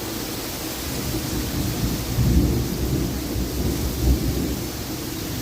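Thunder rumbling over steady rain, swelling about two seconds in with a second peak about four seconds in.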